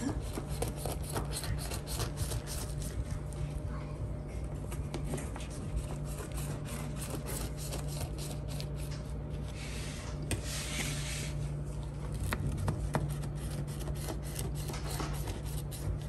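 Knife sawing through the crisp crust of a freshly baked filled pastry in a metal baking tray: scraping, crackling strokes, with one longer, louder rasp about ten seconds in. A steady low hum runs underneath.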